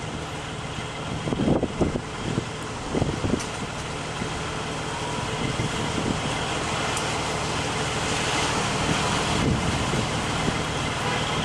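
Hurricane wind rushing steadily and growing stronger, buffeting the microphone in a few low gusts during the first few seconds, over the steady low hum of a fire truck's engine idling.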